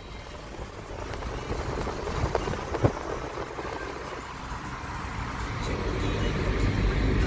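A car driving at speed, heard from inside the cabin: steady tyre and wind noise that grows louder toward the end. A single sharp click about three seconds in.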